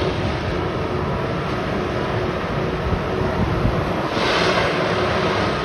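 Steady rushing noise of wind on the microphone over the faint steady hum of a distant dynamic tamping express track machine. A louder gust of hiss comes about four seconds in.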